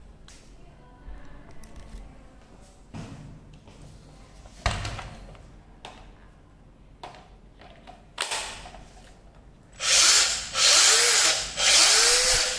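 Makita DPB183 18V cordless band saw with brushless motor running without a load in three short bursts near the end, the trigger squeezed and let go each time. Before that come light clicks and a knock of the saw being handled and set down.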